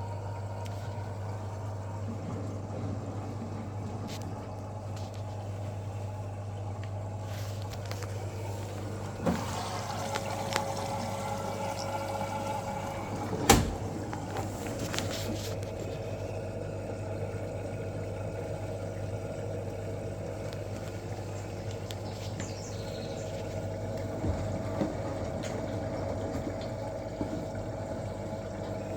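Washing machine running with water noise over a steady low hum, and a sharp knock about halfway through.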